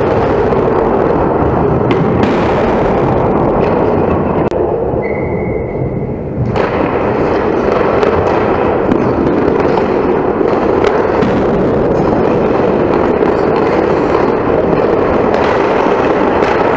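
Ice hockey game noise picked up by a rinkside camera: a loud, crackly rush of skates on ice, broken by sharp knocks of sticks and puck. There is a short lull about four seconds in, with a brief high tone during it.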